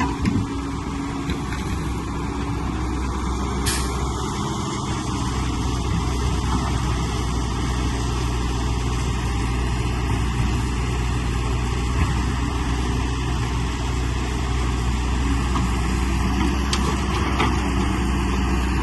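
Heavy diesel engine of an excavator or truck running steadily, a low drone, with a short high hiss about four seconds in.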